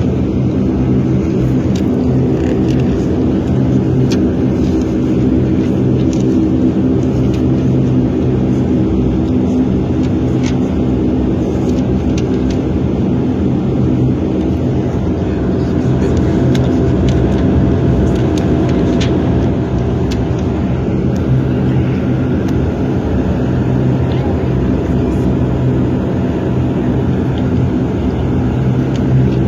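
Bombardier Dash 8 Q400's Pratt & Whitney PW150A turboprops and propellers heard from inside the cabin: a steady, loud drone with several steady tones over it and a few faint rattles.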